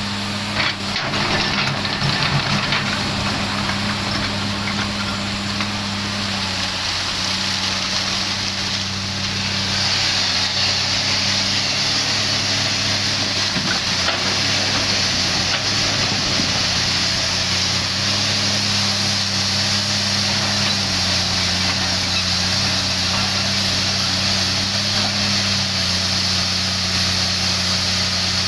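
Komatsu PC300 hydraulic excavator's diesel engine running under working load, its note stepping up and down several times as it digs and swings. Coal and rock knock and scrape against the bucket in the first few seconds, and a steadier hiss joins about ten seconds in.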